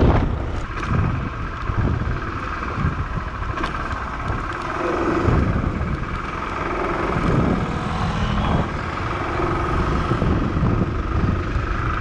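Motorcycle engine running steadily while riding along a road, with a continuous rush of wind and road noise.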